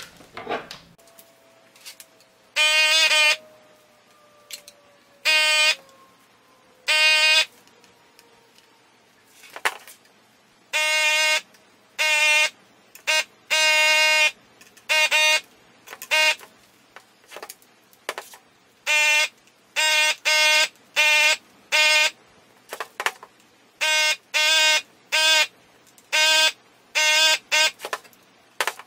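Handheld desoldering gun's built-in vacuum pump whining in short bursts, one each time the trigger is pulled to suck molten solder off the leftover component leads on a circuit board. The bursts are sparse at first and come in quick succession from about ten seconds in, about twenty in all.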